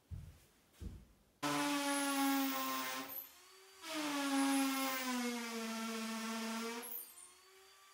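Cordless drill running in two bursts, about a second and a half, then about three seconds, with its motor whine sinking in pitch as it takes load. Two soft knocks come just before.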